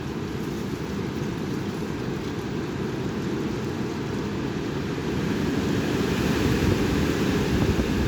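Strong wind buffeting the microphone, a steady low rumble that swells as a gust builds over the last few seconds.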